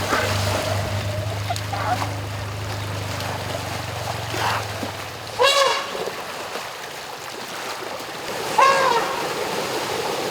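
River water splashing around Asian elephants, with two short high squeals, a little over five seconds in and again near nine seconds, each rising then falling in pitch. A low steady hum runs underneath and stops a little over five seconds in.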